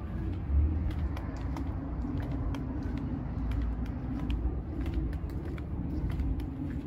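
Outdoor background noise: a steady low rumble with scattered light clicks and knocks.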